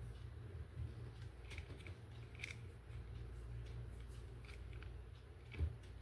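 Light clicks and taps of a plastic toy and its parts being handled, over a low steady hum, with a louder soft knock about five and a half seconds in.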